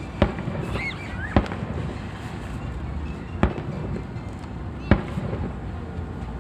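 Aerial fireworks shells bursting: four sharp booms, one to two seconds apart, over a steady background rumble.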